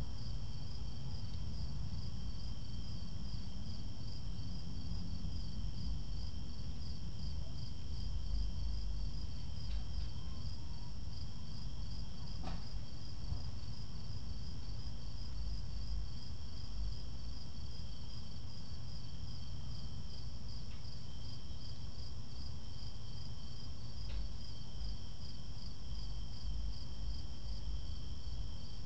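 Crickets chirping in a steady, even pulse, with a second, steadier insect trill a little lower in pitch, over a low rumbling noise. A few faint clicks stand out, the sharpest about twelve seconds in.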